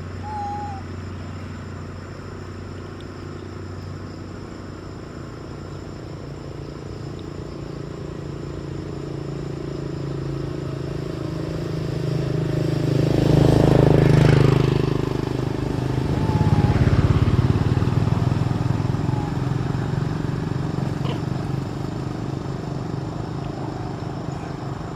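Motor vehicles passing close by over a steady engine hum. One pass swells to the loudest point about halfway through, with the pitch sweeping across the peak, and a second pass follows a few seconds later.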